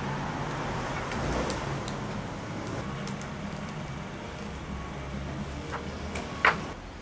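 Hands handling a staghorn fern mounted on a cork bark slab, with faint rustles and light clicks over a steady low background hum, then one sharp knock near the end as the cork mount is set down on the wooden table.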